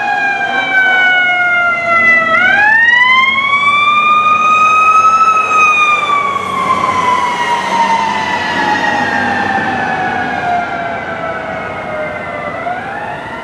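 Fire department rescue ambulance's siren wailing as it passes, loudest a few seconds in and then fading as it moves away. It runs in a slow wail: a fall, a rise to a peak about five seconds in, a long fall, and another rise near the end.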